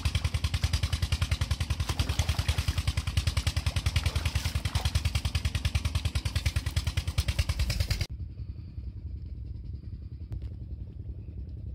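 Chinese Peter-type 16-horsepower single-cylinder diesel engine running a tube-well pump, a steady rapid thudding, with water gushing and splashing from the pump outlet. About eight seconds in the sound drops sharply: the splashing falls away and the engine's beat goes on more quietly.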